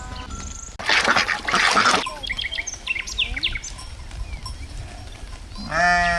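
Farmyard animal sounds: a rough, noisy call lasting about a second near the start, then small birds chirping, then a sheep bleating with a wavering voice near the end.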